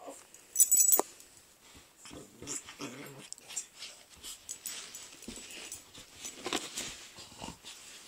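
A Pomeranian and a pitbull play-fighting: irregular short growls, snuffles and scuffling of the two dogs wrestling, with one loud sharp sound just under a second in.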